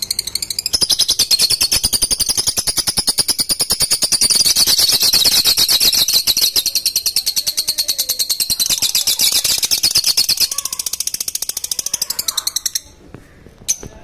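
Lovebirds chattering: a loud, continuous stream of rapid, shrill, evenly repeated chirps that cuts off abruptly near the end, followed by a few single chirps.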